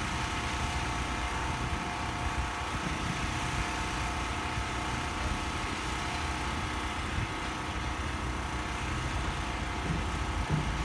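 Crane engine running steadily with a low rumble and a faint steady hum while it lowers a turret roof on its hook.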